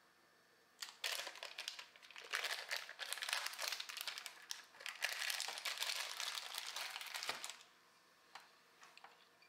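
Plastic bag crinkling as a block of cheese is handled and wrapped back up in it, a busy crackling lasting about seven seconds. A few light taps follow near the end.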